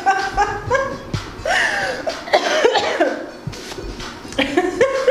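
A woman's repeated short, strained vocal grunts of effort while driving a heavily loaded barbell up in a hip thrust, with a few dull thumps from the bar.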